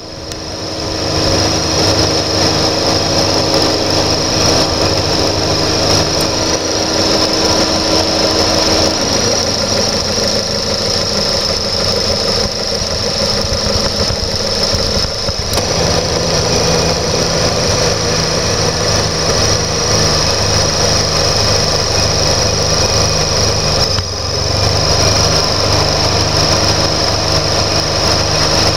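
Mercedes-Benz W124 four-cylinder engine idling steadily with a constant high whine. Its note shifts about nine seconds in, again around fifteen seconds, and with a brief dip around twenty-four seconds, as the load changes when the AC relay switches the compressor clutch.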